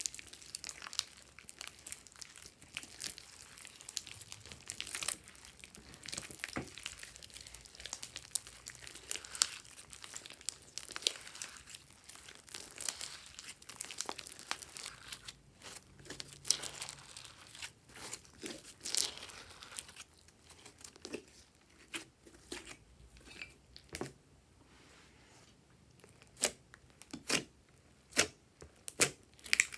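Hands squishing and stretching slime, making dense sticky crackling. About two-thirds of the way in, this thins out to scattered sharp pops and clicks.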